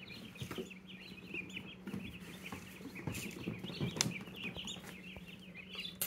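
A brooder full of baby meat chicks peeping, many short, high peeps overlapping continuously, with a faint steady low hum underneath.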